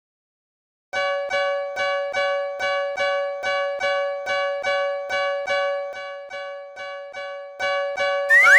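Japanese railroad crossing warning bell ringing its repeated 'kan-kan' strikes, about three a second on one unchanging bell-like tone. It starts after a second of silence and fades a little before growing louder again, and a rising 'boing' glide comes in at the very end.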